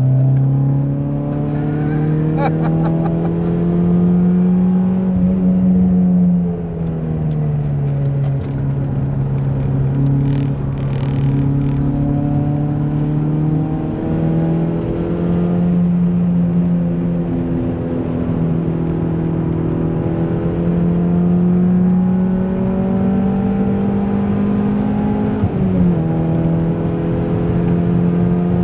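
Opel Vectra 2000's C20XE 2.0-litre 16-valve four-cylinder heard from inside the cabin, its note climbing with revs and dropping sharply at gear changes, about six seconds in and again near the end.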